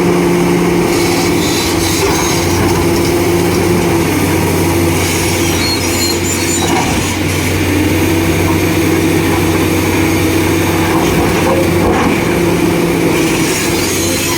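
Diesel engines of hydraulic excavators running steadily under load as they pull a heavy granite block, a continuous low engine drone whose pitch holds nearly constant.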